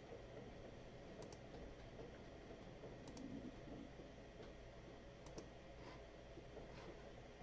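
Near silence: room tone with several faint computer mouse clicks scattered through, as the part's orientation buttons are clicked.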